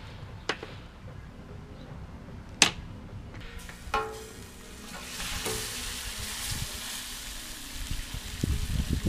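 Halved lobster sizzling on a hot flat griddle, the sizzle starting about five seconds in. Before it come a few sharp clicks and a ringing metal clink of utensils, and there are some low bumps near the end.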